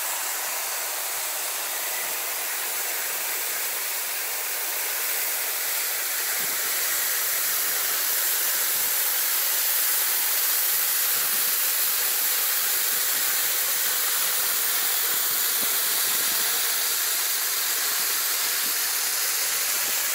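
Rushing water of a mountain stream: a steady hiss that grows a little louder about five seconds in.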